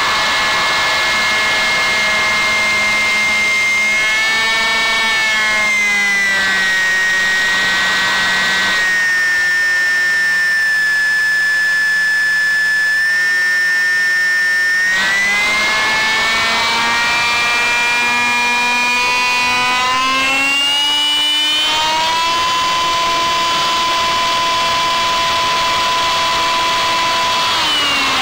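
Brushless electric motor and propeller of a ParkZone Striker RC delta wing in flight, heard from the onboard camera: a steady whine whose pitch follows the throttle. It dips around five seconds in, stays lower for several seconds, climbs back up, holds high, and starts to fall at the very end.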